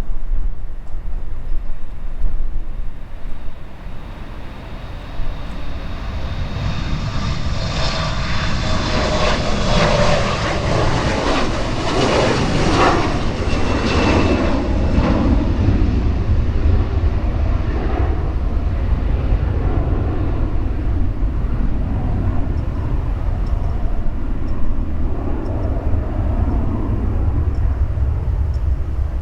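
Embraer E175 regional jet's twin turbofans passing by, their whine and roar swelling to a peak about halfway through and then fading, over a steady low rumble of wind on the microphone.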